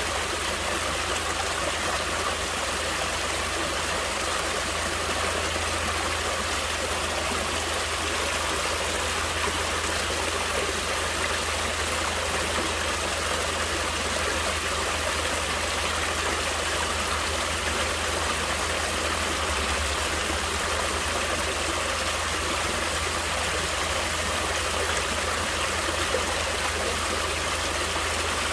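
Natural water flowing steadily, an even, unbroken rush of water noise with no pauses or separate splashes.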